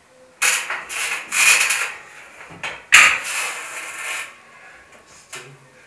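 Lat-pulldown cable machine in use: cable running over the pulleys as the weight stack is raised and lowered, in several sliding strokes of about a second each. A short knock comes about five and a half seconds in.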